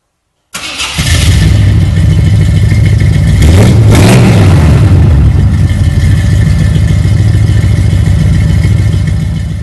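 V8 engine of a 1960 Ford F250 Crew Cab idling, given one quick rev about three and a half seconds in that rises and falls in pitch before it settles back to a steady idle.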